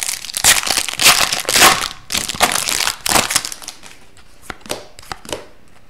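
Foil wrapper of an Upper Deck hockey card pack crinkling and crackling in bursts as it is torn open by hand, over about the first three seconds. Then it goes quieter, with a few light clicks as the cards are handled.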